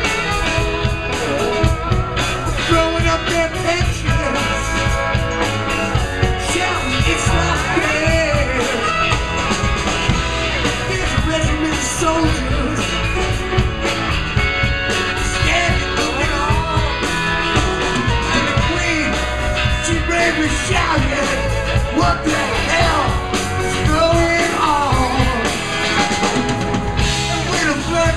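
Live rock band playing: electric bass, drum kit, electric guitar and keyboards, steady through the whole stretch.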